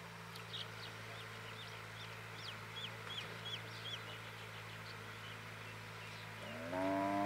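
Steady low hum of a diesel engine, with a bird repeating short high chirps over the first few seconds. Near the end a cow starts a loud moo, the loudest sound here.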